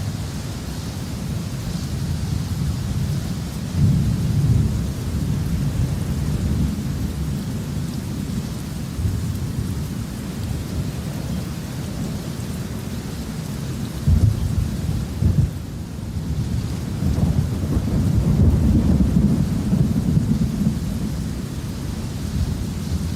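Thunderstorm: steady rain with low rolling thunder that swells several times, strongest about four seconds in, around fourteen to fifteen seconds, and in a longer rumble near the end.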